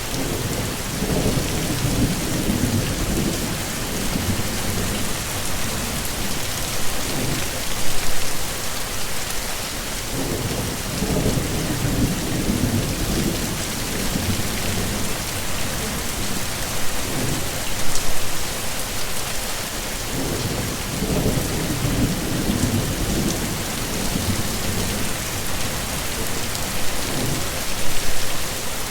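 Heavy, steady rain hissing down, with low rolls of thunder that swell and fade about every ten seconds.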